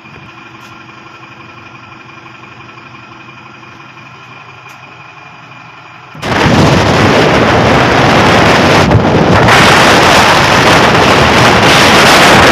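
A motorcycle engine idling steadily. About six seconds in, this cuts suddenly to loud wind rushing over the microphone on a moving motorcycle, which covers every other sound.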